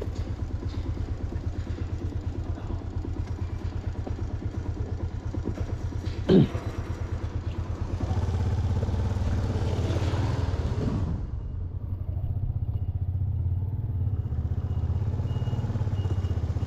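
Motorbike engine running steadily under way, a low pulsing rumble with road and wind noise that swells for a few seconds past the middle. A single short sharp sound comes about six seconds in.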